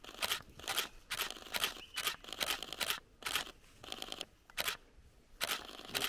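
DSLR camera shutters clicking in quick bursts, roughly two bursts a second at irregular spacing.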